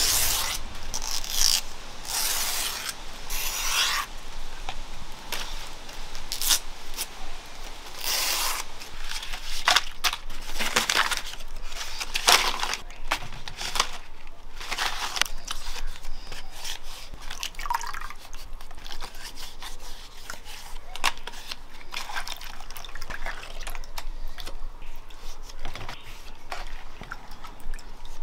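Hands working a wet food mixture: irregular rustling, rubbing and squishing noises, a few a second and uneven in loudness.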